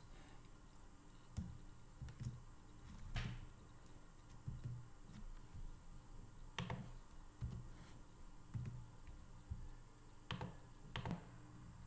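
Faint, sparse keystroke clicks on a computer keyboard, irregularly spaced about a second apart, as code is typed and edited.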